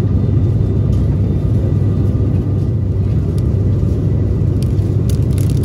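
Steady cabin drone of an ATR 72-600's twin turboprop engines and propellers in flight, a strong low hum with a few steady tones above it. Near the end, a few short crinkles of a plastic snack bag being handled.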